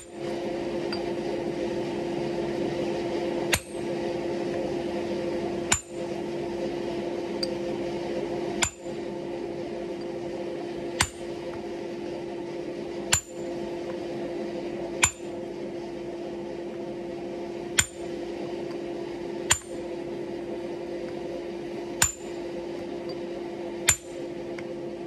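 Hand hammer striking a handled hot chisel into a glowing wrought iron billet on an anvil, cutting it across the middle for a cut-and-fold. There are about ten blows, the first about three and a half seconds in, then one every two seconds or so, each with a short high metallic ring. A steady hum runs underneath.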